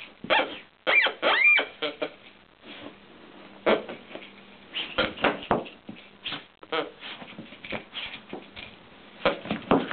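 A plush marmot toy's grunter noisemaker sounding as a dog shakes and chews the toy. Two short squealing calls come about a second in, among irregular knocks and rustling from the shaking.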